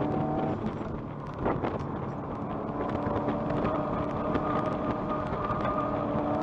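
Subaru WRX's turbocharged flat-four engine heard from inside the cabin over road and wind noise. The engine note drops back about a second in, then returns and climbs slowly as the car pulls through the corner.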